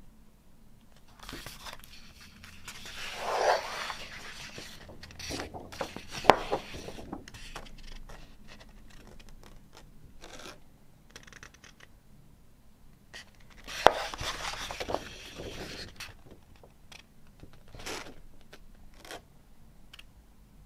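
A large paper lyric sheet being unfolded and handled: papery rustling and sliding in two longer stretches, with two sharp snaps and scattered small ticks.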